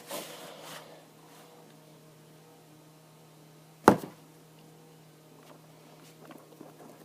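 A single sharp knock or click about four seconds in, from hands pressing and working the iPad mini's cardboard box open, over a faint steady hum.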